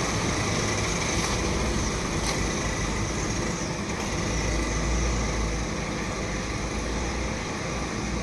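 Steady background road-traffic noise with a low rumble.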